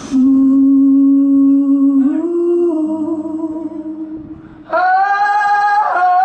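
Male rock vocalist singing long held notes, with little else in the mix. The first note steps up in pitch about two seconds in and fades. A louder, higher note comes in near the end.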